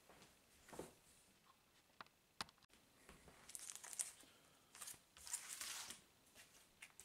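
Faint rustling and crinkling of plastic-bagged comic books being handled, with a couple of light ticks about two seconds in and two longer rustles in the second half.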